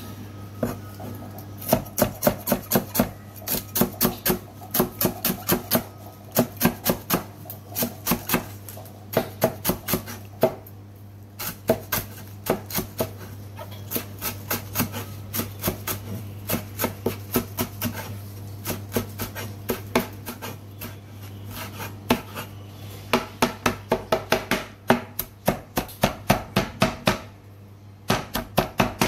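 Cleaver chopping parsley on a plastic cutting board: quick runs of sharp blade knocks, several a second, broken by short pauses.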